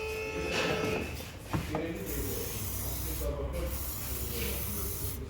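Aerosol cleaner spraying in hissing bursts with short breaks between them, as carbon is flushed from a throttle body. Background music fades out about a second in.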